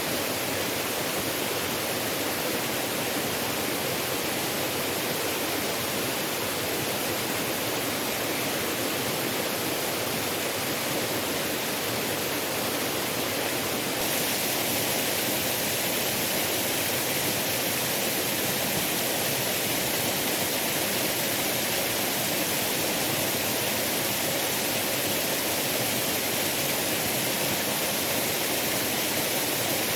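Waterfall: a steady, unbroken rush of falling water, turning slightly louder and brighter about halfway through.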